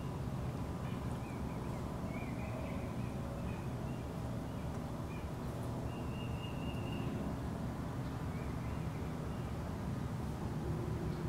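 Outdoor ambience: a steady low rumble, with thin bird calls coming and going above it, one held for about a second midway.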